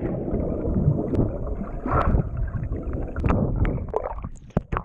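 Muffled underwater rush and crackle of air bubbles heard from under the water, just after a person plunges in. It fades near the end, with a few sharp clicks as the bubbles clear.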